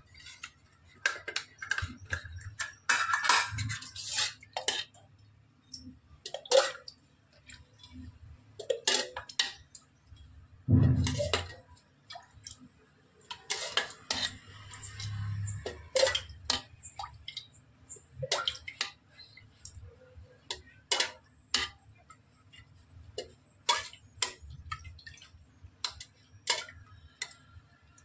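Scattered clinks and knocks of utensils against an aluminium kadhai while cooking oil is poured into it.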